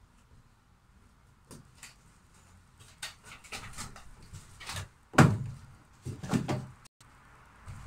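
Scattered clicks and knocks of hands and tools being handled at close range, with two louder thumps about five and six seconds in, then a brief abrupt cutout.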